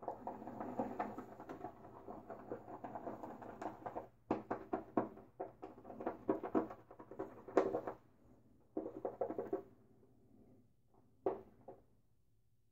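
Silvertip badger shaving brush swirled and whipped through shaving-soap lather in a bowl: a wet, scratchy swishing of quick strokes, steady at first, then in short bunches with pauses in the second half.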